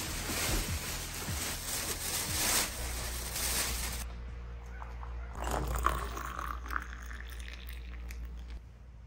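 Black plastic garbage bag crinkling and rustling as it is gathered and tied. About halfway, after a short quieter gap, hot water is poured from a stainless kettle into a mug of coffee.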